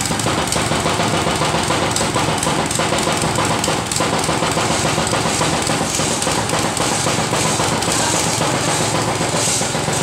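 Mikasa tamping rammer used as a small pile driver, its engine opened up to full throttle and pounding rapidly and steadily on a vertical pipe pile. It comes up to speed suddenly at the start.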